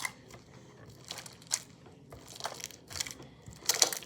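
Wet slime being kneaded and squeezed by hand, giving off a string of short, irregular crackling squelches as the washed pieces are worked back together, the loudest cluster near the end.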